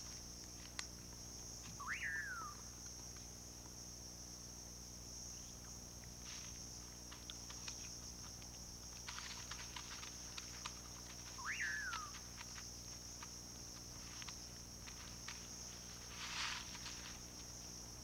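Night forest ambience: a steady high insect trill, with two short calls that rise then fall about ten seconds apart. Scattered rustles and clicks in dry leaf litter, as from an animal foraging, and a low steady hum underneath.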